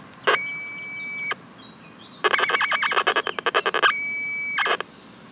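Terminator Pulse Hunter deep-search pulse metal detector giving its target signal: a steady high electronic tone lasting about a second, then a fast-warbling tone for nearly two seconds, then the steady tone again. It is the detector responding to a helmet held more than a metre from its large frame coil.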